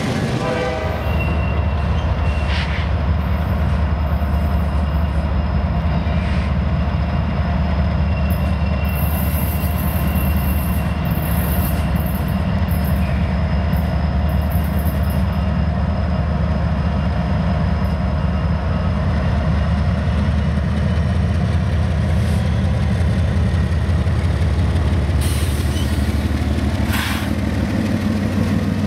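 Norfolk Southern freight train rolling past with a steady heavy rumble of wheels on rail. Thin, steady wheel-squeal tones run over it, with a few sharp clanks and a patch of high hissing squeals in the middle.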